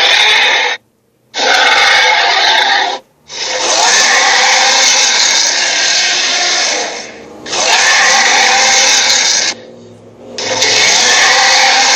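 Loud, harsh, rasping noise in long stretches, broken four times by sudden gaps, two of them cutting out almost completely.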